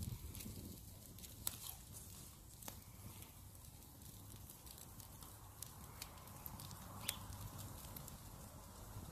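Wood fire crackling faintly, with scattered sharp pops over a low steady rumble.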